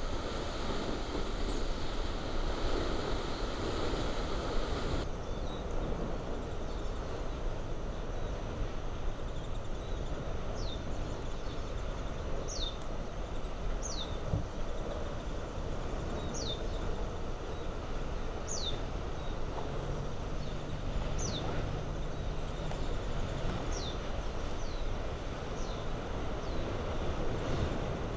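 Kilauea fissure lava fountain erupting: a steady, deep noise of jetting gas and spatter, which turns less hissy about five seconds in. From about ten seconds in, short high chirps repeat roughly once a second over it.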